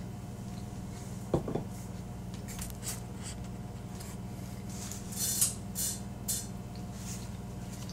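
A single knock about a second and a half in, then a cluster of short wet mouth sounds near the end as a forkful of loaded baked potato is taken and chewed, over a steady low hum.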